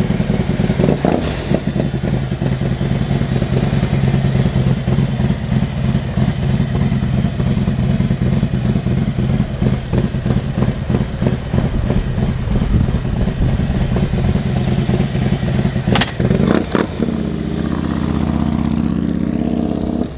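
Stage 2 Harley-Davidson Milwaukee-Eight V-twin running with a fast, lumpy pulsing beat, then a couple of sharp throttle blips about sixteen seconds in, followed by a smoother steady engine note near the end as the bike pulls away.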